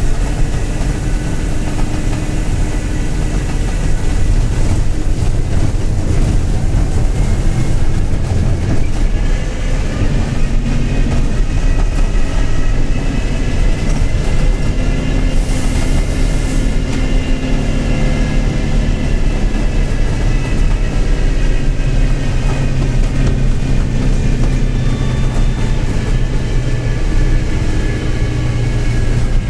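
Mercedes-Benz OF-1721 BlueTec 5 bus's four-cylinder diesel running while the bus drives, with a bearing growling, the sign of a worn bearing. Over it a whine rises and then falls in pitch as the bus gathers and loses speed.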